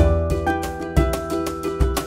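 Background music: pitched instrumental notes over a regular low beat.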